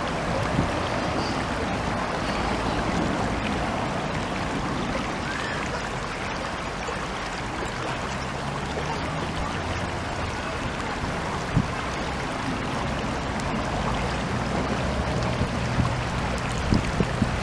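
Stream water rushing and splashing steadily over rocks.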